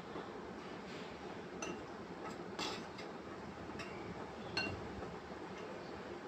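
A dry flour-and-spice mix being stirred in a bowl: a handful of light, ringing clinks of the utensil against the bowl, spaced irregularly, over a faint steady hiss.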